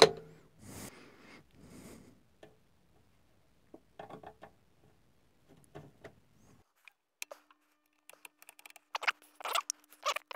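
A sharp click from the valve tester's toggle switch, followed by handling noise and small knocks as an EM84 valve is worked into its socket. Past the middle a faint steady hum comes in, under a quick run of scraping sounds.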